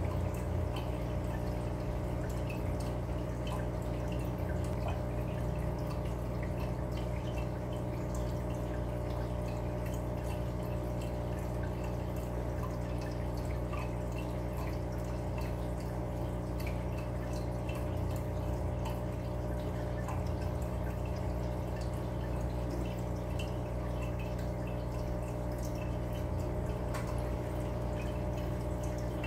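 Aquarium aeration: bubbles from air stones rising and bursting at the water surface in a constant, irregular patter of small drips, over a steady low pump hum.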